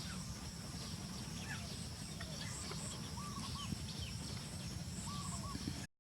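Outdoor ambience: a steady low rumble with scattered faint chirping animal calls, including two short warbling calls about three and five seconds in. The sound cuts out abruptly just before the end.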